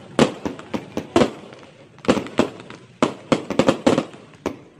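Aerial fireworks bursting: a run of sharp bangs and pops at irregular intervals, bunching into a rapid cluster just after three seconds in.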